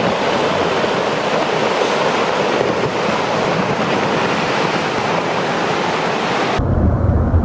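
Loud, steady rushing roar. About six and a half seconds in it cuts sharply to a deep, low rumble.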